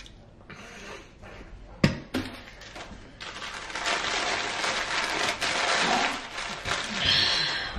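A sharp knock about two seconds in, then a paper sandwich wrapper being crumpled and balled up by hand: a dense crackling rustle lasting several seconds.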